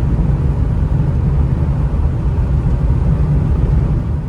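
Steady low rumble of a vehicle driving on the road.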